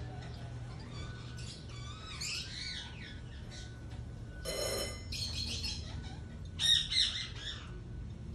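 A pair of blue Indian ringneck parakeets calling: a run of warbling chirps, a harsh squawk about halfway, more chatter, and two loud squawks near the end.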